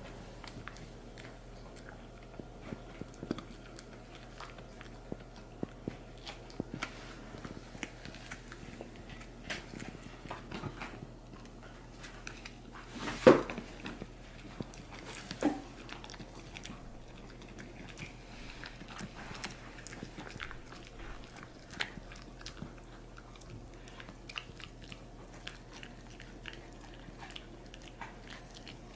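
Corgi puppy chewing and biting a hard snack: irregular crunches and clicks, the loudest crunch about 13 seconds in and another about 15 seconds in.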